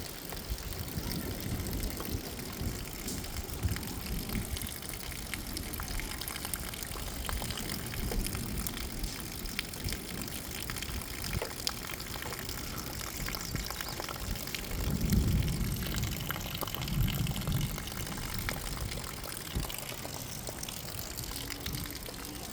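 Steady hiss of rain and wind in a thunderstorm, with two low rumbles about two-thirds of the way through, the first the louder.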